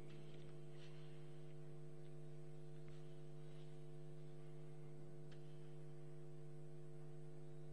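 Steady electrical hum with a stack of even overtones, with a few faint clicks.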